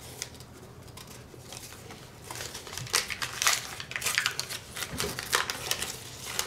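A 1989 Upper Deck baseball card pack being torn open by hand: the wrapper crinkles and tears in short irregular bursts, starting about two seconds in.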